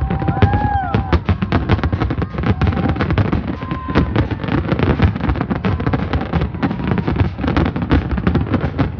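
Fireworks display exploding in a dense, continuous barrage of bangs and crackles, with a few short whistling tones in the first second and again about four seconds in.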